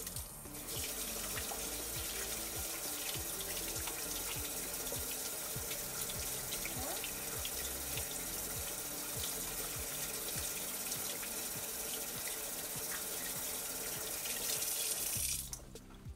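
Kitchen faucet running steadily into the sink while hands are rubbed and rinsed under the stream; the water is shut off near the end.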